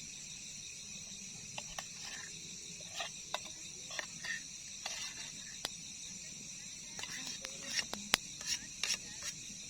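Steady chirring of crickets, with scattered small clicks and scrapes of something being handled. The clicks and scrapes come more often and louder in the last couple of seconds.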